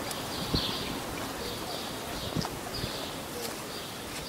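A few knocks of footsteps on a motorhome's metal checker-plate roof, with a bird chirping repeatedly behind them.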